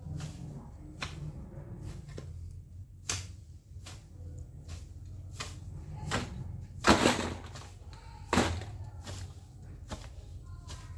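A long-handled garden tool repeatedly chopping and scraping into weedy ground, about one strike a second, with a longer, louder scrape about seven seconds in. A steady low rumble runs underneath.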